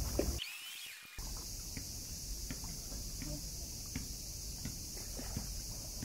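Faint water splashing and sloshing as a large hooked carp struggles at the pond's edge, with scattered small knocks over a steady high hiss. The sound drops out for most of a second near the start.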